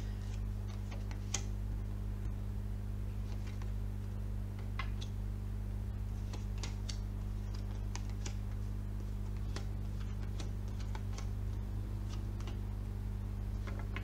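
Light clicks and ticks of tarot cards being handled and laid down on a table, scattered every second or so, over a steady low electrical hum.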